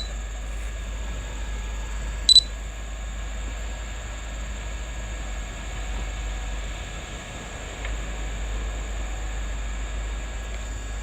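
Backhoe engine running steadily with a low rumble, with two short, sharp, high-pitched beeps, one at the start and one a couple of seconds in.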